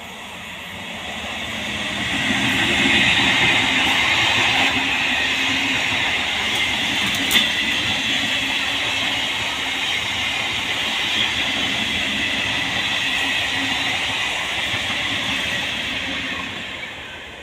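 Electric multiple unit (EMU) suburban passenger train passing at speed: the noise builds over the first few seconds, holds steady, then dies away near the end, with one sharp click about seven seconds in.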